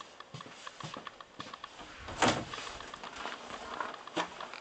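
Handling noises from the snowmobile's plastic hood being opened: scattered light clicks and knocks, a louder scrape about two seconds in and a sharp click near the end.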